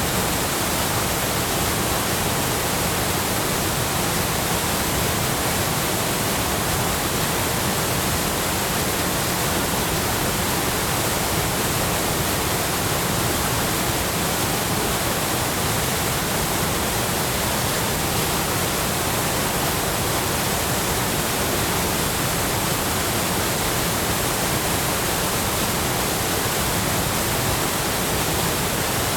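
Choshi Otaki waterfall on the Oirase Stream: a steady, unbroken roar of falling water.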